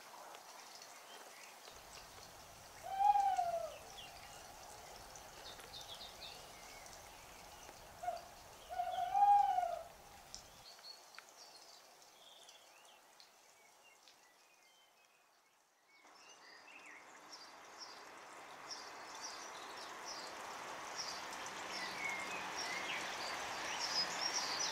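An owl hooting: a single arched hoot about three seconds in, and a short note followed by a longer hoot around nine seconds. Short high peeps sound faintly throughout. After a brief near-silence, a steady hiss rises toward the end.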